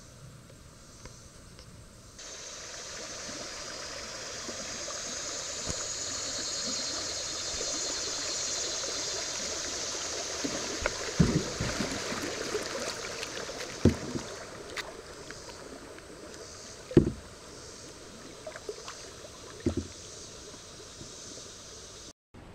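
Rushing riffle water hissing steadily around a kayak running down a river, heard from the boat. Four dull knocks come in the second half.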